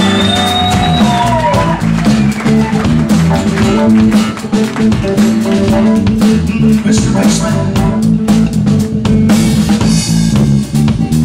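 Live band playing an instrumental passage: acoustic guitar strumming, a bass guitar line and drums keeping a steady beat, with some sliding high notes in the first couple of seconds.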